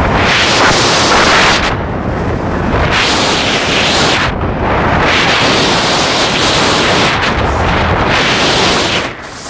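Loud wind buffeting a small camera's microphone during a ski run downhill, surging in gusts and easing briefly a few times.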